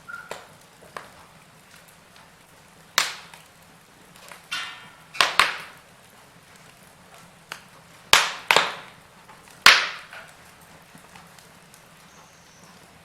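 Burning wood fire crackling: scattered sharp pops and snaps, about six loud ones through the middle, over a faint steady background hiss.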